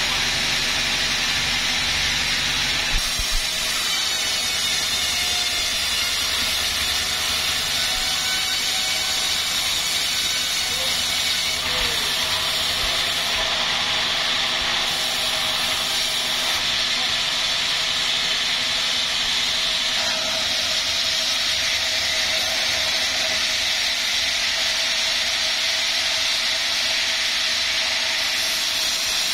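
Sawmill saw running steadily through a wadang log, giving a continuous hissing whine.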